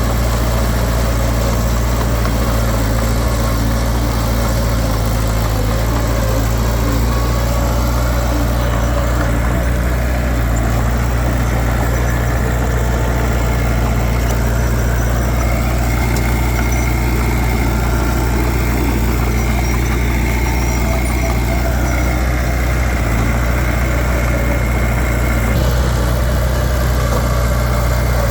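Heavy diesel earthmoving engine running steadily at a low, even speed. A faint high whine joins it about halfway through and cuts off shortly before the end.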